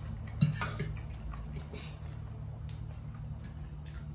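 Eating sounds: a few soft, wet clicks and taps, the sharpest about half a second in, over a steady low hum.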